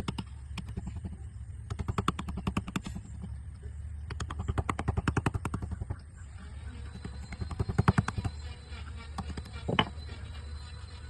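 Rapid, light tapping on a wood-carving chisel, about eight taps a second, in several bursts with short pauses between them. A steady low hum runs underneath.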